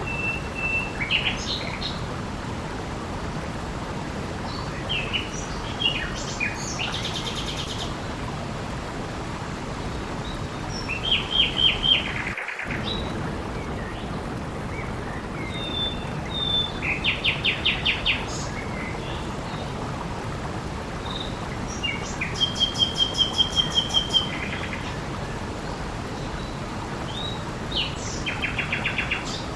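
Steady hiss of water with songbirds singing over it: short calls and fast trilled phrases, a quick run of repeated notes, about every five or six seconds. The water hiss drops out for an instant about halfway through.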